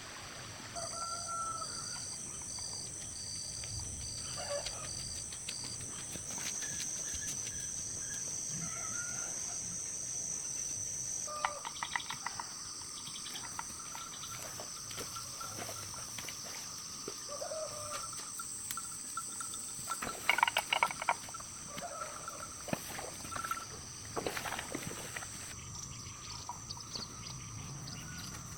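Outdoor ambience of steady high-pitched insect buzzing with scattered bird chirps. There is a run of short, evenly spaced high pips in the first few seconds, and a few sharp clicks or knocks, the loudest cluster about twenty seconds in.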